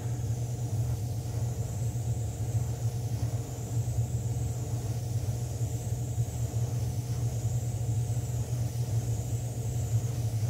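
Iwata airbrush spraying a thin line of black paint: a steady hiss of air, over a constant low machine hum.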